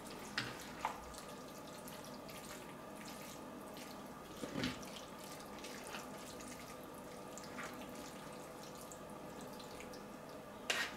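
Two plastic serving spoons tossing saucy spiral pasta and minced meat together in a ceramic baking dish: soft wet squelching, with a few short clicks of the spoons against the dish, the loudest about four seconds in and near the end.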